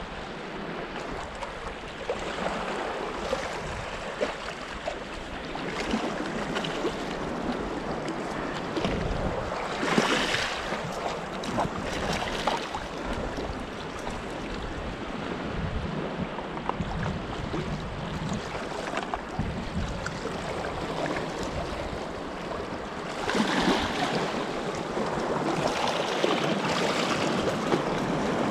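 Seawater washing and swirling around rocks at the wader's feet, with wind buffeting the microphone. Louder splashing surges come about ten seconds in and again in the last few seconds.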